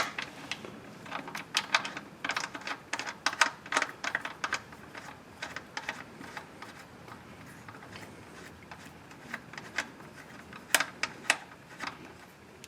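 Irregular light clicks and taps of the oil drain plug being handled and threaded back into the oil pan: a run of quick clicks in the first few seconds, fewer in the middle, and a few more near the end.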